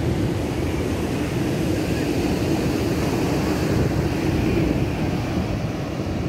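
Ocean surf breaking on a beach, with wind blowing across the microphone: a steady low rumble.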